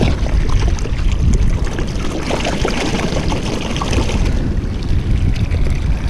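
Wind buffeting the microphone over the wash of sea surf, with a hissing surge of water swelling about two seconds in and easing off after four.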